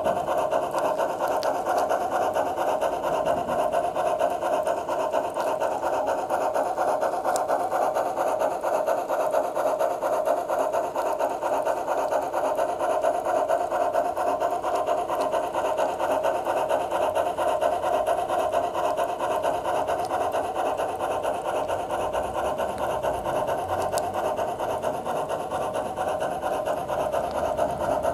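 Soundtraxx Tsunami sound decoder in a Bachmann G-scale Climax model locomotive playing the fast, even chuffing of a geared steam engine through the model's small speaker as it runs.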